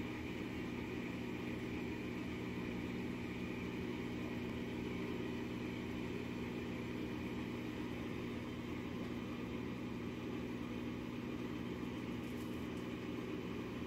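Steady mechanical hum with a constant low drone that does not change.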